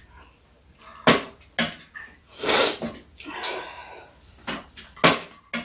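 Table eating sounds: sharp clicks of metal spoons against bowls, several times, with a loud breath-like hiss about two and a half seconds in and a softer one a second later.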